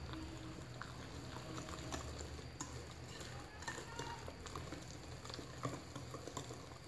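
Wire whisk stirring thick, wet cake batter of rice and oat flour in a glass bowl: faint squishing of the batter with scattered light clicks of the wires against the glass.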